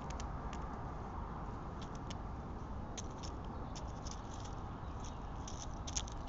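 Steady low outdoor rumble and hiss on the trail camera's microphone, with scattered faint high clicks and ticks, most likely a squirrel nibbling and handling seed or nuts close to the camera.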